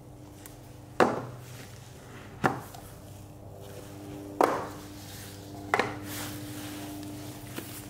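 Four separate hollow knocks as the round parts of a packaging box are set down on a tabletop, each dying away quickly, spaced a second or two apart.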